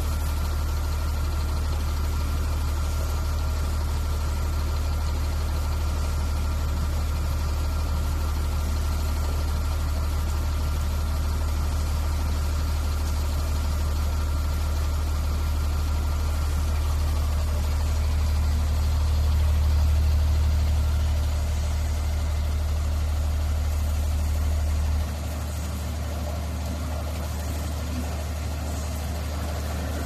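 Automatic gantry bus washing machine running its rotating brushes along a coach: a steady low mechanical drone with a faint steady whine above it. The whine stops a little over halfway through, and the deepest part of the drone cuts out suddenly a few seconds before the end.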